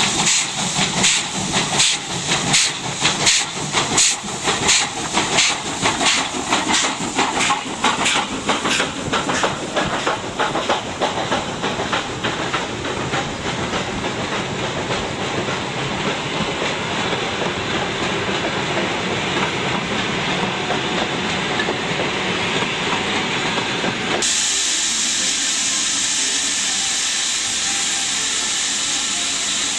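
Russian E-class 0-10-0 steam locomotive working, its exhaust beats quickening and running together into a steady hiss. About 24 seconds in the sound changes abruptly to a steady hiss of steam.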